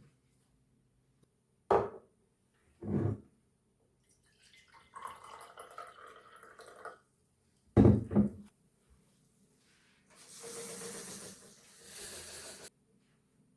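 Bathroom handling sounds: a few sharp knocks of things being set down, a stretch of rustling and light clatter, then water running from a tap for about two and a half seconds near the end.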